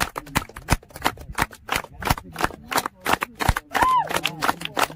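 A small group of people clapping: quick, uneven sharp claps, about five or six a second, with a brief high tone rising and falling about four seconds in.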